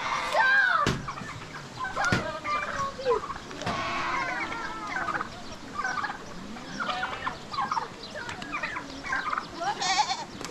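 Farmyard poultry calling, many short overlapping clucks and calls throughout, with a couple of sharp knocks in the first two seconds.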